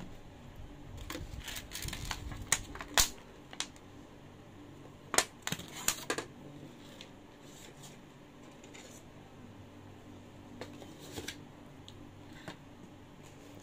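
Clicks, knocks and clatter of a plastic fork and takeout containers being handled at a meal. The sounds come in two clusters of sharp taps, a few seconds in and again around the middle, then only a few scattered clicks.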